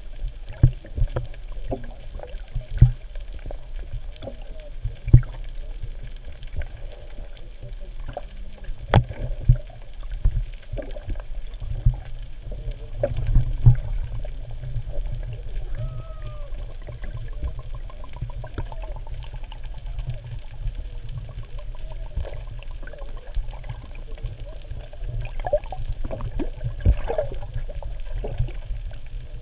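Underwater sound picked up by a GoPro 3 through its waterproof housing: a steady low rumble with scattered sharp knocks and clicks, and faint wavering whines in the background.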